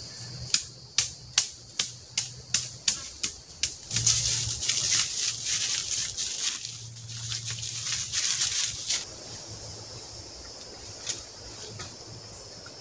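Footsteps crunching through dry leaf litter: quick, even, crisp steps about three a second, then about five seconds of dense leaf rustling and shuffling before it quiets down.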